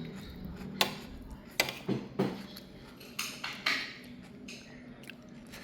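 Utensils knocking and clinking against dishes: about half a dozen short, sharp taps spread over the first four seconds.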